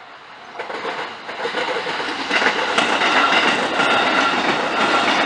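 Train running past on the JR Takasaki Line over a level crossing: wheel-on-rail noise swells from about half a second in and then holds loud, with wheel clicks over the rails.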